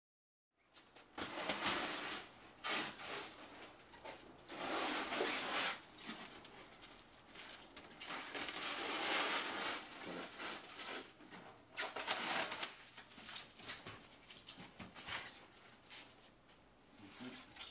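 Clear plastic stretch wrap being pulled off its roll and wound tightly around a blanket-covered TV, rustling and crackling in irregular surges. It starts about half a second in.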